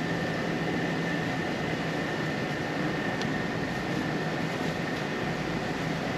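Steady mechanical drone with a constant high-pitched whine and a low hum, a few faint ticks over it.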